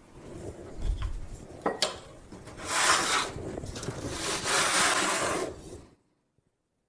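Wet lame blade slicing across the floured skin of a sourdough boule, scoring a crosshatch: scratchy rasping strokes, with a couple of small clicks early on from the hands and blade on the floured wooden peel. Two longer, louder rasping stretches come about three and five seconds in, and the sound cuts off suddenly about a second before the end.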